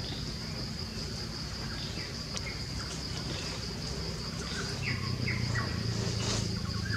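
Steady high-pitched insect drone, with a few short chirps about five seconds in.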